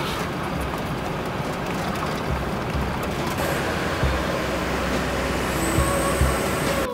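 Road and engine noise inside a Land Rover's cabin as it drives along a wet road: a steady rushing noise with a few short low thumps about two, four and six seconds in.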